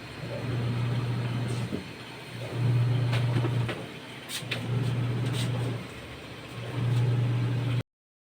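Washing-machine motor on a test run, humming steadily in four bursts of about a second each with short pauses between them. A few light clicks come in the middle.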